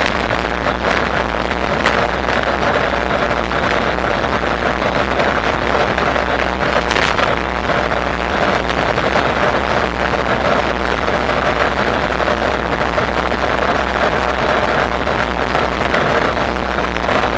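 Steady ride noise from an e-bike under way: a continuous rush of wind and tyre noise over a low hum.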